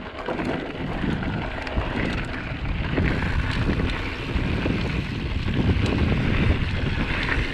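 Wind rushing over a GoPro action camera's microphone as an Intense Spider 275c mountain bike descends a loose dirt trail, its tyres rolling over the dirt with scattered small clicks and rattles.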